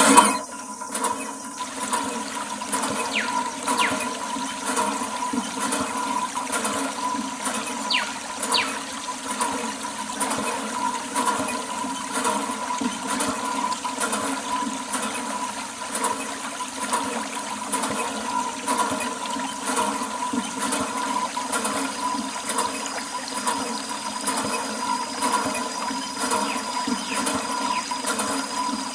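Water running in a steady stream for washing, with a thin steady whine underneath.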